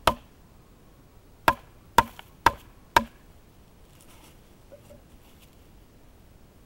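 Fixed-blade knife chopping into a wooden stick laid across a log: five sharp chops, one at the start and four more about half a second apart beginning about a second and a half in.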